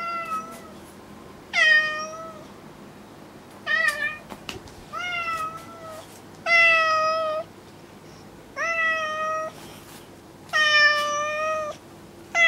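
Domestic cat meowing over and over, about seven drawn-out meows roughly every two seconds: a plaintive appeal to its owner for comfort.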